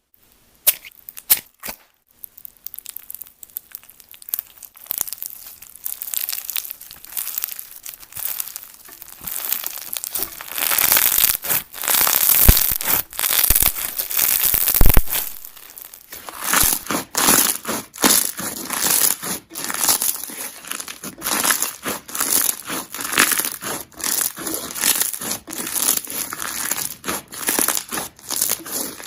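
Slime being squeezed, pressed and poked, giving crunchy crackling and sharp popping clicks. The crackles are sparse at first and grow dense and loud about a third of the way in.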